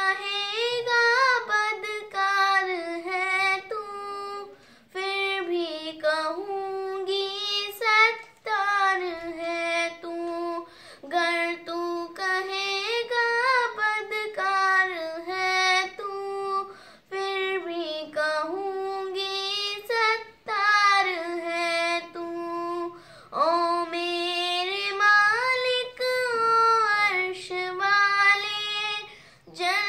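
A young girl singing a Hindi-Urdu devotional song unaccompanied, solo voice in long held phrases with short breaths between lines.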